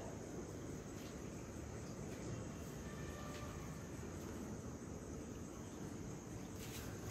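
Faint, steady high-pitched trilling of crickets, over a low background rumble.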